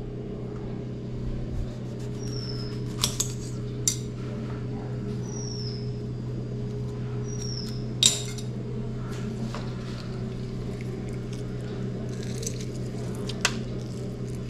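Scattered sharp clinks and taps of a knife and steel bowl against a glass countertop as a lime is cut and squeezed, the loudest about eight seconds in, over a steady low hum. A few short, high chirps falling in pitch come through now and then.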